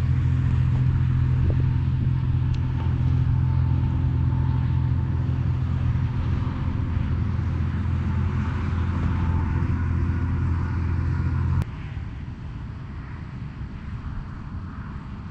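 A steady low motor drone that cuts off suddenly with a click about twelve seconds in, leaving a fainter rumble.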